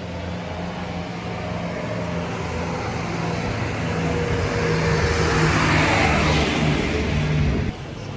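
A motor vehicle's engine running and growing louder as it approaches, passing close by about six seconds in. The sound cuts off abruptly near the end.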